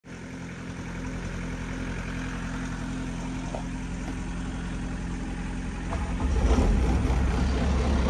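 A farm machine's engine running steadily at idle, then growing louder and rougher about six seconds in as it is revved or put under load.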